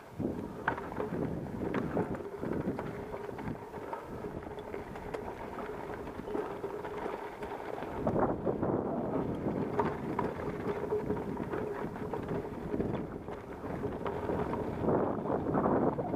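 Mountain bike riding fast down a dry dirt and gravel singletrack: tyres rolling and crunching over loose stones, the bike rattling with scattered clicks, and wind noise on the microphone. It grows louder in the last couple of seconds.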